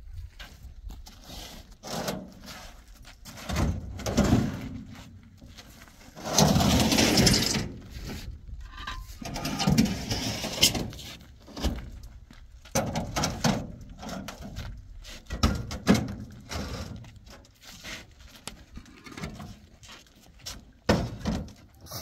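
Irregular knocks and clatter of building blocks being handled, with a longer scraping rush about six seconds in and another about ten seconds in.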